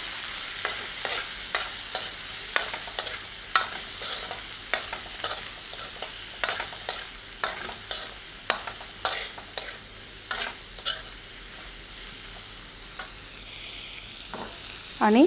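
Chopped onion and whole spices sizzling in hot oil in a metal kadhai, stirred with a steel ladle that clinks and scrapes against the pan at irregular moments over a steady frying hiss.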